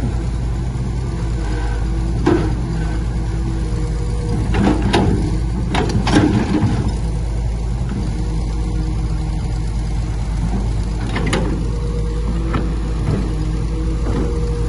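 Heavy diesel engine of earthmoving machinery running steadily, with several sharp metallic clanks over it.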